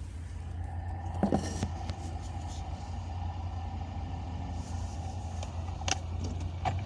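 UAZ Patriot running with a steady low drone and a whine, broken by sharp knocks: two close together about a second in, and two more near the end. It is the knock the owner hears when pressing the clutch, which he places around the transfer case.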